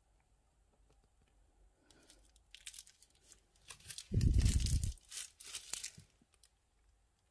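Crinkling and rustling of a plastic piping bag being handled, in irregular bursts starting about two seconds in. It is loudest for about a second in the middle, with a low rumble, and dies away about six seconds in.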